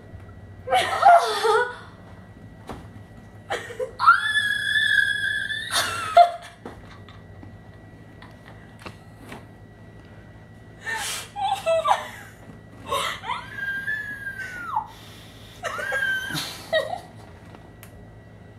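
A young woman's high-pitched squeals, whimpers and laughing from the pain as an earring is pushed through her newly pierced ear lobe. One long squeal comes about four seconds in, followed later by several shorter cries.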